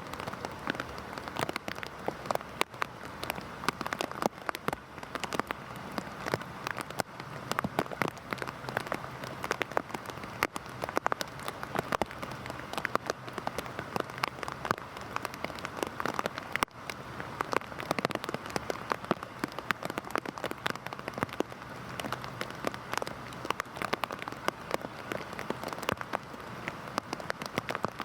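Heavy rain falling steadily: a dense hiss with many sharp, close drop impacts scattered through it.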